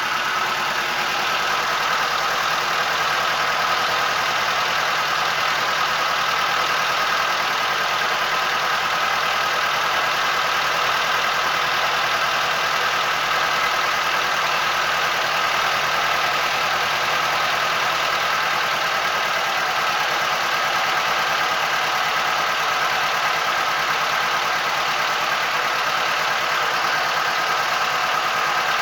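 A boat's engine running steadily, its level and pitch unchanging throughout.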